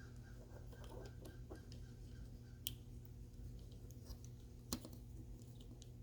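Small plastic parts of a toy train motor housing clicking and tapping faintly as they are fitted together by hand, with two sharper clicks about three seconds in and again near five seconds.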